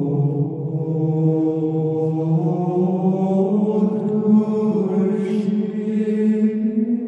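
Male voices singing slow plainchant in unison, holding long low notes that step slowly up in pitch.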